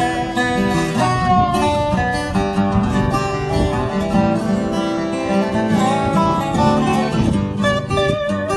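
Background music led by acoustic guitar, plucked and strummed at a steady pace.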